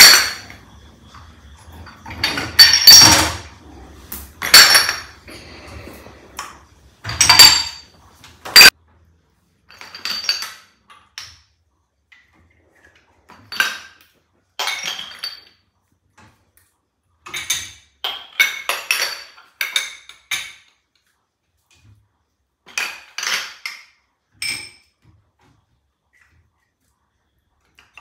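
Glass jars, small containers and lids clinking and knocking together as they are lifted out of a dishwasher rack and set down, in scattered clusters. The loudest knocks come in the first nine seconds, with softer clinks after.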